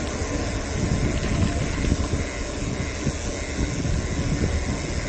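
Steady wind noise on the camera's microphone: a continuous low rush with no pauses or distinct events.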